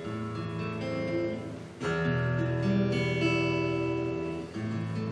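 Acoustic guitar playing the introduction to a song: sustained chords, with a new chord struck about two seconds in and another near the end.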